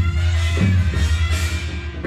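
Music: an instrumental passage with a steady drum beat under sustained instrument notes and a strong bass.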